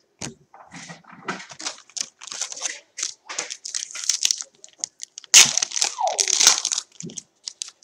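Foil trading-card pack wrapper crinkling and rustling while the cards are handled and flipped through, in a series of short crackles that grow loudest past the middle.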